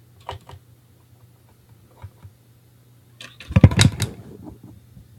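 Hard plastic clicks and knocks from handling a magnetic one-touch card holder while prying it open: a few light clicks, then a louder cluster of clicks and knocks about three and a half seconds in.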